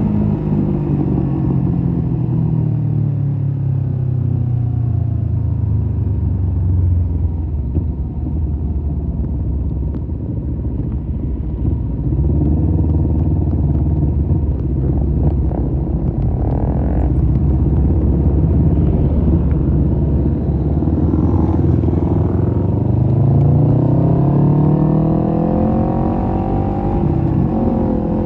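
Kawasaki Z250 parallel-twin engine breathing through an aftermarket SeaPro muffler while being ridden. The revs drop over the first several seconds as the bike slows, hold low and steady through the middle, then climb again as it accelerates near the end before easing off.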